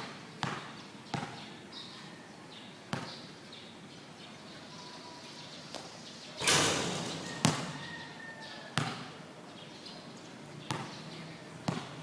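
Basketball game play on an indoor court: a ball bouncing hard on the floor in irregular thumps, about seven in all, with faint sneaker squeaks. About six and a half seconds in there is a louder, noisier burst that lasts about half a second.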